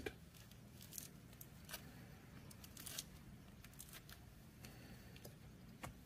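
Near silence: room tone with a handful of faint clicks and rustles from gloved hands handling a wire and the metal clips of a helping-hands stand.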